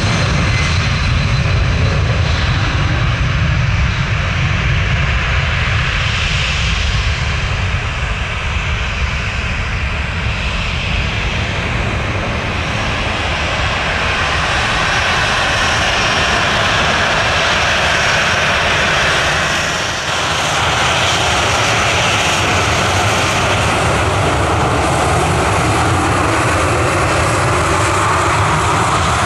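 Airliner jet engines running loud and steady: a deep rumble under a rushing noise with a faint whine, the level dipping briefly about two-thirds of the way through.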